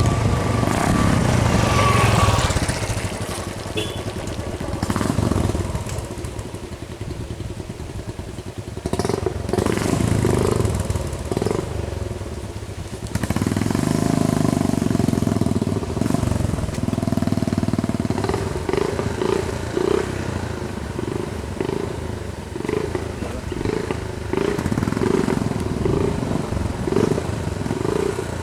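A motor vehicle's engine running close by, rising and falling in level, with a regular pulsing in the second half.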